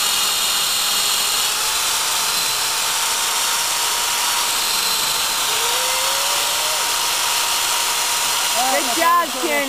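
Black & Decker corded electric drill running steadily with its bit boring into a maple trunk, drilling a tap hole for sap.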